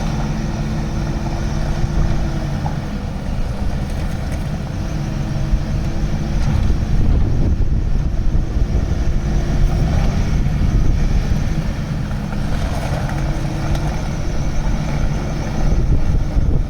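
Bobcat S770 skid steer loader's diesel engine running, with its level and tone shifting from time to time, louder from about seven seconds in and again near the end.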